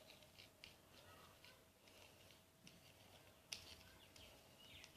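Near silence with faint, irregular light scrapes and ticks of a spoon stirring a small amount of shampoo and salt, and one sharper click about three and a half seconds in.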